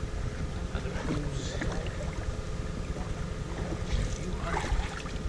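Wind rumbling on the microphone of a camera lying still outdoors, with a few faint knocks and rustles.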